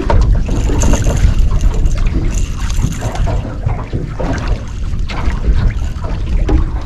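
Wind buffeting the microphone on an open boat: a heavy, steady low rumble with faint scattered knocks and rustles over it.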